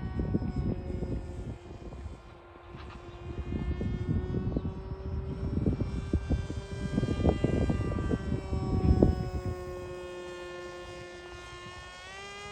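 Electric motor and propeller of a Volantex Ranger 1600 RC plane whining in flight, its pitch drifting slowly and rising near the end as the throttle comes up. Gusts of wind buffet the microphone throughout and are the loudest sound.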